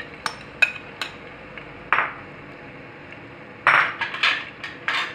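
A metal spoon tapping and scraping against a ceramic bowl as chopped red onion is knocked out into a pot of oil: a few sharp clinks in the first second, a scrape about two seconds in, and a louder rough scraping run near the end.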